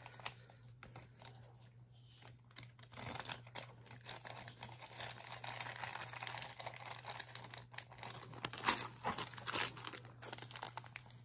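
Small zip-top plastic bag crinkling as it is handled and opened, with irregular rustles and clicks and a louder burst of crackling after about eight seconds.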